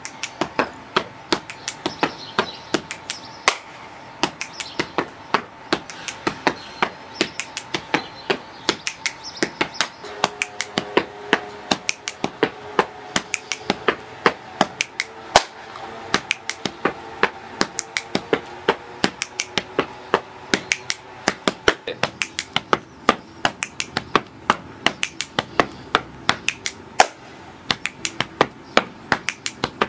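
Body percussion played as one continuous phrase: hand claps and finger snaps, with slaps on the body, in a quick steady rhythm of several strikes a second.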